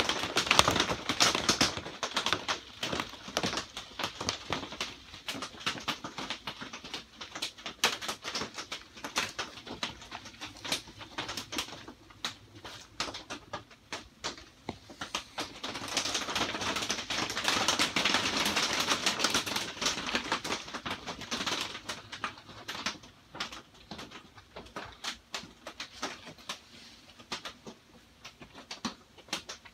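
Rain pattering on a greenhouse: a dense, uneven run of small drip ticks, heavier for a few seconds past the middle.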